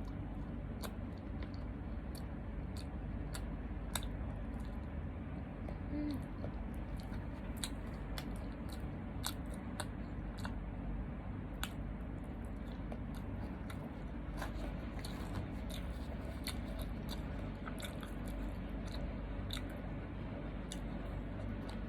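A person chewing and eating close to the microphone, with many short, irregular mouth clicks and crunches over a steady low hum.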